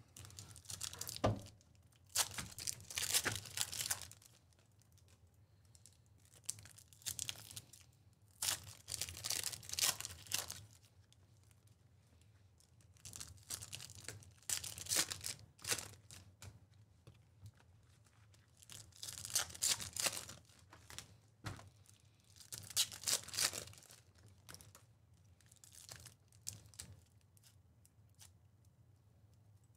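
Trading-card hobby packs being torn open, their flimsy glued-shut foil wrappers ripping and crinkling in bursts every few seconds.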